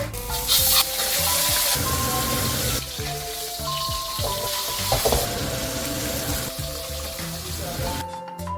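Fish sizzling as it pan-fries in hot oil: a steady hiss that starts just after the beginning and dies down near the end, over background music.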